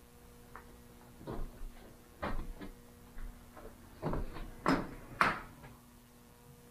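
A handful of irregular knocks and thuds, the loudest two about five seconds in, over a faint steady hum.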